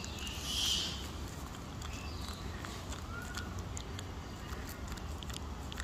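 Wild macaques calling: a short, shrill squeal about half a second in and a brief, higher-pitched call near three seconds, with scattered small clicks and rustles over a steady low rumble.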